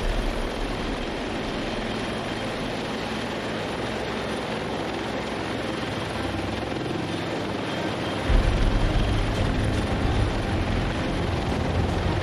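Helicopter hovering with its rotor and engine running steadily; the low rumble gets louder about eight seconds in.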